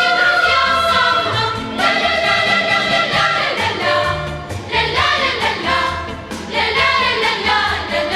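Choir singing a song with instrumental accompaniment and a bass line.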